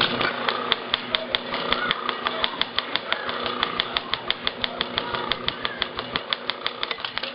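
Film projector mechanism running with a steady, rapid clicking, about five or six clicks a second, over a low hum.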